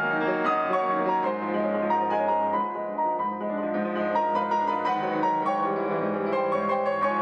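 Fazioli F278 concert grand piano being played: quick runs of many notes over steady lower notes.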